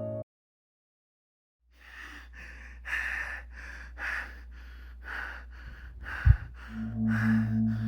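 A person breathing fast and hard: short rapid breaths at about two a second over a steady low hum. There is a single low thud about six seconds in, and a low humming tone starts just after it.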